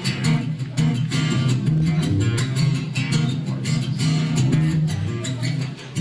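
Acoustic guitar strummed quickly and steadily in an instrumental passage of a song, with a short lull near the end.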